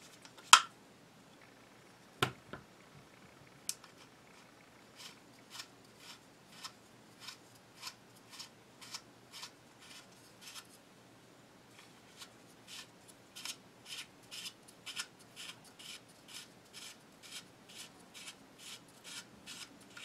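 Tavor X95 front sight being unscrewed, giving short metallic clicks at a steady rate of about two a second, with a few separate sharper clicks in the first few seconds. The clicking is probably from the sight's spring-loaded detent plunger.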